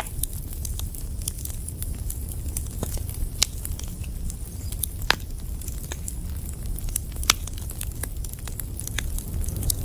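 Fire crackling: a steady low rumble with sharp pops at irregular intervals, a few of them louder.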